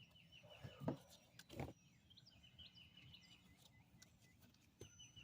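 Faint birdsong, a small bird repeating short high chirps, over a quiet river background, with two dull thumps about a second and a second and a half in.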